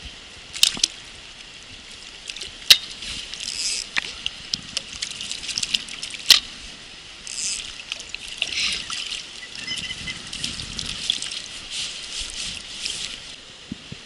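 Water trickling and splashing in irregular bursts, with a few sharp clicks, three of them standing out.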